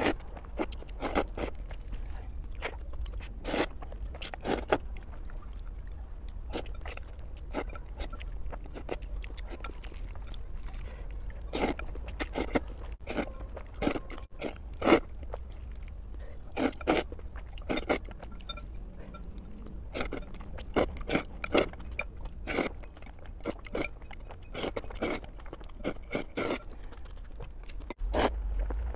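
A person eating noodles close to the microphone: slurping strands in and chewing, a string of short sharp mouth sounds at irregular intervals.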